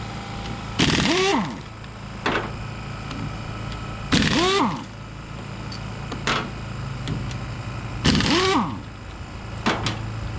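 A power wrench is run in three short bursts, a few seconds apart, its pitch rising and falling each time as it spins bolts off the differential. There are sharp metallic clicks between the bursts, and a steady low hum underneath.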